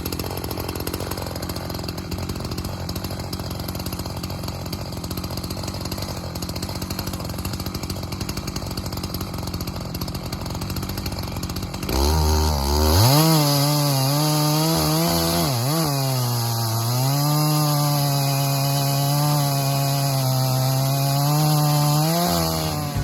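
Muffler-modded Echo CS-620P two-stroke chainsaw with a 36-inch bar, ripping a butternut log lengthwise on an Alaskan chainsaw mill, running steadily at high revs. About twelve seconds in it gets louder and clearer, the engine speed climbs quickly and then keeps wavering as the chain loads up in the cut.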